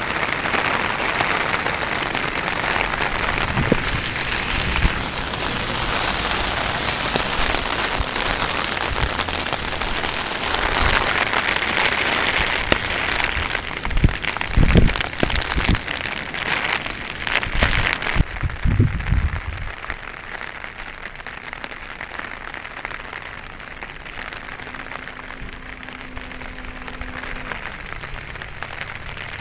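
Heavy rain falling, a dense steady hiss, with a few low thumps between about halfway and two-thirds of the way through. The rain hiss then drops to a much softer level.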